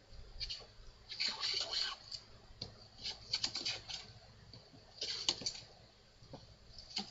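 A hand plane taking short strokes on a wooden workbench leg: three scratchy, clicking bursts of about a second each, around one, three and five seconds in.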